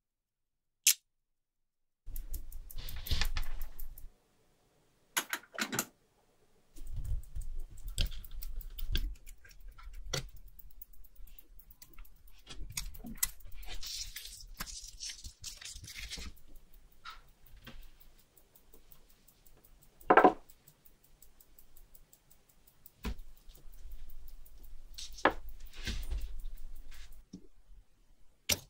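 Watch-restoration bench handling: small metal tools and watch parts clicking, tapping and scraping, with short runs of quick ticks and a louder knock about twenty seconds in.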